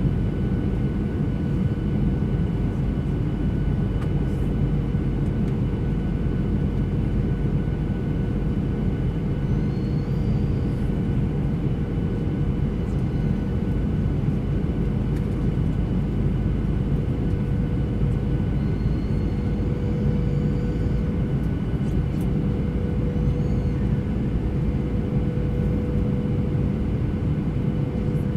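Airliner cabin noise in flight: a steady, even rumble of the jet engines and airflow, with a constant hum running through it.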